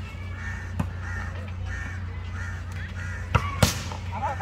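Birds calling over and over in short, evenly spaced calls. A volleyball is smacked once lightly under a second in, then twice sharply in quick succession about three and a half seconds in; those two are the loudest sounds.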